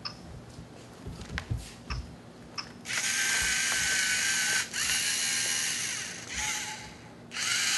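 A few light knocks as a Lego Mindstorms NXT robot is set down on the table. Then its geared servo motors start up with a loud whirring whine as it drives, cutting out briefly twice as it stops at the black line and reverses.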